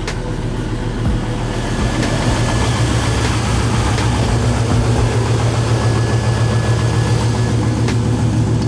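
GM 5.3-litre V8 truck engine running steadily with a low drone, a few faint ticks over it.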